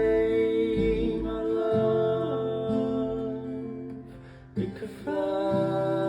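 Acoustic guitar song with a long, held sung note over the strummed guitar. It fades briefly about four seconds in, and new notes start about a second later.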